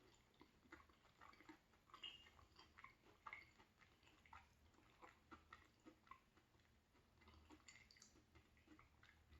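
Faint chewing of a chocolate bar with cookie pieces inside: many small irregular clicks and soft crunches.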